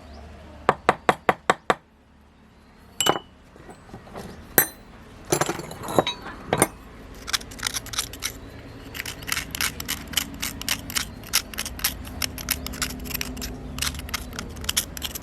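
Light metallic clinking and tapping of tools and parts being handled. A quick run of about six sharp clicks comes about a second in, then a few louder knocks, then a steady patter of small taps, several a second, through the second half.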